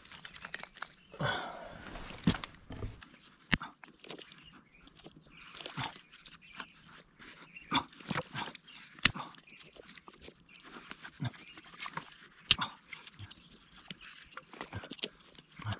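Dry pine sticks and forest litter being handled and snapped: a rustle about a second in, then scattered, irregular sharp cracks and clicks, the loudest about two-thirds of the way through.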